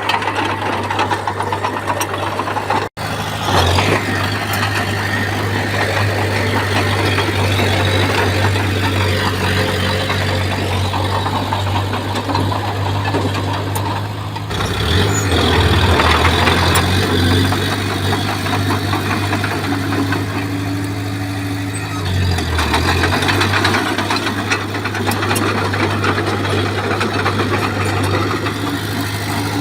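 Komatsu bulldozer's diesel engine running under work, a steady low drone whose pitch shifts twice, with a momentary break about three seconds in.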